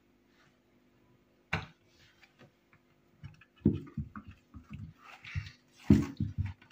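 Silicone ice-pop mould handled on a wooden board as frozen kiwi ice pops are pushed out of it: a single knock about a second and a half in, then a run of short knocks and rubbing in the second half.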